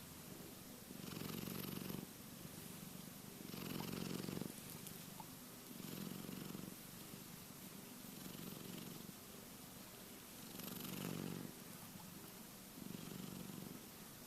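Sleeping cat snoring, a low rumble that swells with each breath and fades between, about six breaths in the span.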